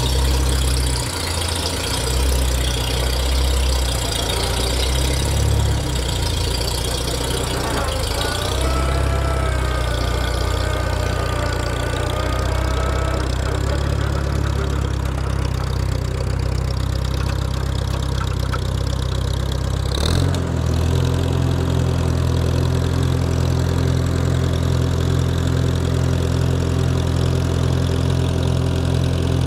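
Farmall tractor engine idling steadily, left running to warm up before an oil change. It runs smoothly, and its tone shifts suddenly about twenty seconds in.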